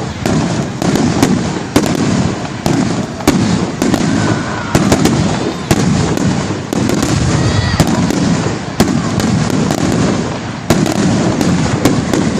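Aerial fireworks display: a rapid, unbroken run of shell bursts, deep rolling booms overlapped with many sharp cracks.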